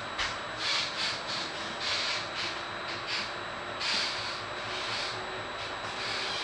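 Interior noise of a Vivalto double-deck passenger coach running at speed: a steady rumble of wheels on rail with a series of short hissing swishes coming at uneven intervals, over a faint, thin, steady high whine.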